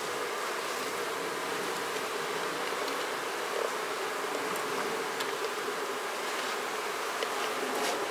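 Honeybee colony buzzing in a steady hum from an open hive, with a few faint ticks as the hive parts are handled.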